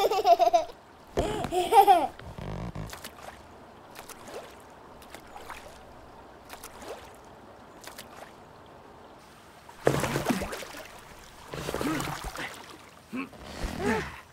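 A baby's short, high vocal cries, twice in the first two seconds. Then faint river trickle with small clicks, and from about ten seconds in a louder burst of noise followed by more short vocal sounds.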